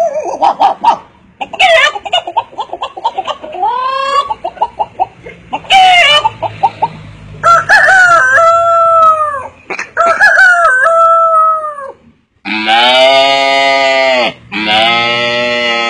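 A man imitating a chicken with his voice: short clucking sounds, then several drawn-out crowing calls, the last two near the end the longest and loudest.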